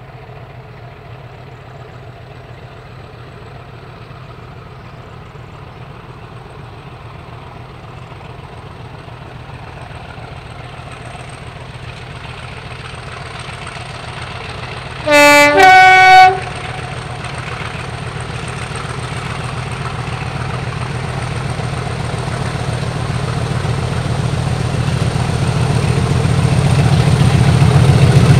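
A Class 50 diesel locomotive's English Electric 16-cylinder engine running, growing steadily louder as it approaches. About halfway through it sounds its two-tone horn: a short lower note, then a longer higher one.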